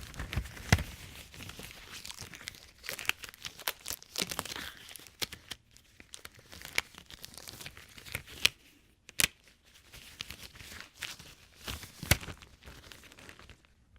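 Latex examination glove being stretched and worked over a hand: rubbery rustling and crinkling broken by several sharp snaps of the rubber, the loudest about a second in, then around eight and a half and twelve seconds in.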